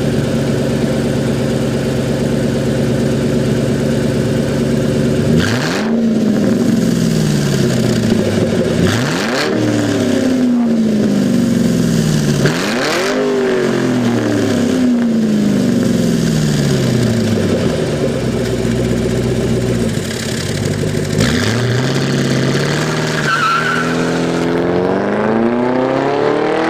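American muscle car engine idling, then revved sharply about four times, each rev dying back down to idle; near the end the revs climb more slowly and hold.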